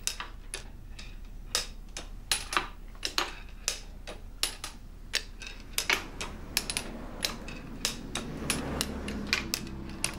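Mechanism of a hand-cranked replica of an ancient repeating bolt-thrower clicking as it is wound to draw the bowstring back: sharp mechanical clicks, irregular, about two or three a second.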